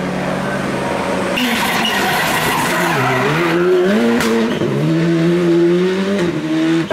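Rally car engines driven hard on a tarmac stage. A steady engine note gives way abruptly to another car whose revs drop about three seconds in, then climb again in steps through the gears. There is one sharp crack partway through.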